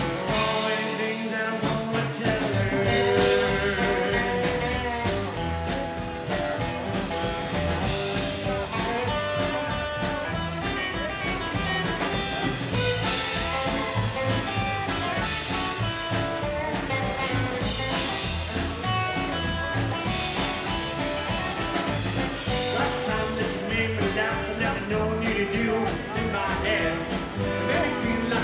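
Live rockabilly band playing a song: male lead vocals over acoustic guitar, upright double bass and drum kit. The lowest notes drop out briefly about a second in.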